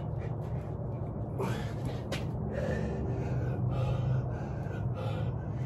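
A man breathing hard and gasping in short, uneven breaths under heavy exertion, over a steady low hum.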